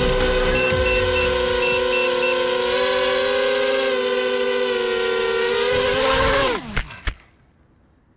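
Electric motors of a 250-size FPV racing quadcopter held at a steady whine, then spinning down, the pitch falling sharply before they stop about seven seconds in.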